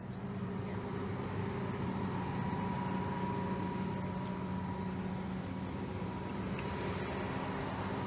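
Case IH 8230 combine harvester's diesel engine and drivetrain running steadily, heard from inside the cab as the machine drives, a constant drone with a thin whine over it.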